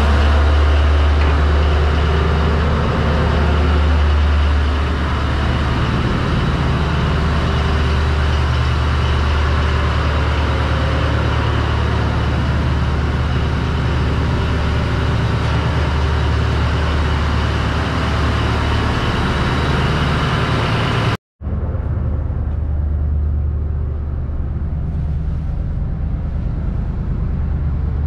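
Steady drone of a fishing vessel's onboard machinery heard inside the hull: a strong deep hum with a wide hiss over it. It drops out for a moment about two-thirds through and comes back duller.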